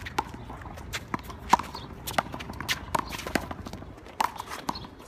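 Rubber handball smacked by bare hands and rebounding off a concrete wall and pavement during a fast one-wall handball rally: a quick, irregular string of about a dozen sharp smacks and bounces, the loudest about one and a half seconds in.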